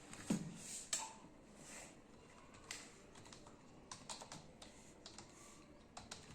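Keys of a Dell wired keyboard being typed on: faint, irregular key clicks in small clusters, with a few louder taps near the start.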